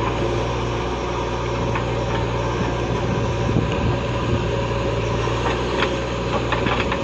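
JCB backhoe loader's diesel engine running steadily while the backhoe scoops soil and lifts the loaded bucket, with a few knocks and rattles from the bucket and soil.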